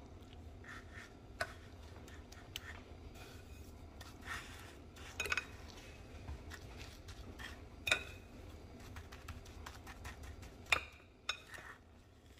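A metal fork clinks and scrapes against a glass bowl as chicken cutlets are turned and pressed into breadcrumbs. The clinks come at irregular intervals, a few of them sharper, the sharpest about two seconds before the end.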